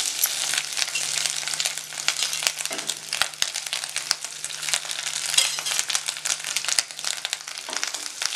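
Sliced onion, ginger and garlic sizzling in hot oil in a nonstick kadhai, with freshly grated coconut just added, stirred with a wooden spatula. A steady frying hiss runs under frequent short crackles and clicks.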